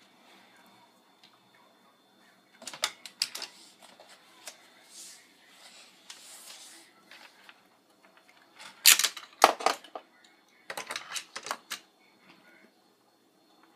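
Hard plastic toy pieces clicking and clattering as they are handled, in three bursts of quick knocks about 3, 9 and 11 seconds in, the one around 9 seconds loudest.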